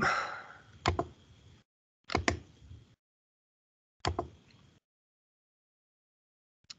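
Computer mouse clicks: a brief rustle at the start, then a single click, a quick double click about a second later, another click, and a faint one near the end, with dead silence between.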